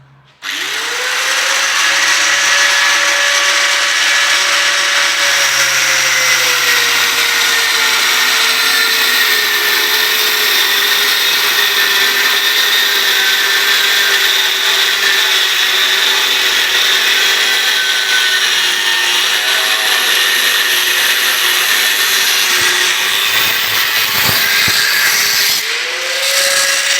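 Handheld electric power tool starts up and runs loud and steady. Its motor pitch sags soon after starting and stays low, a sign it is working under load, then rises back to free-running speed near the end.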